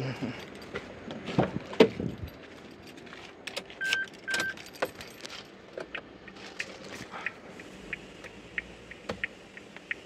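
Car keys jangling and clicking against the steering column of a Maruti Suzuki Jimny, with a few knocks near the start. Two short electronic beeps from the car come about four seconds in.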